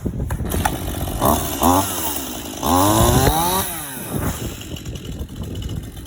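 Stihl MS 181 C-BE two-stroke chainsaw running and revved up twice, the pitch climbing and falling each time, with the second rev the loudest. It is being tried out with a freshly fitted chain.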